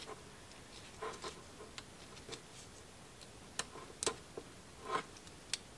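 Faint, irregular small clicks and light rustles from hands handling small carburetor parts and plastic packaging on a workbench, about eight ticks spread unevenly.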